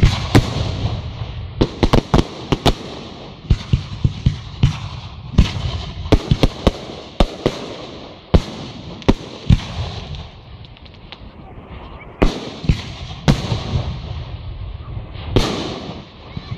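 Fireworks display: a rapid run of aerial shell bursts, many sharp bangs in quick clusters with crackling between them.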